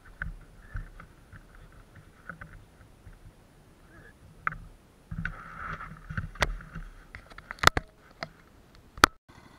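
Muffled, wind-buffeted rumble of an action camera riding along on a pit-bike trail ride, with several sharp knocks from the camera jolting, the loudest two near the end.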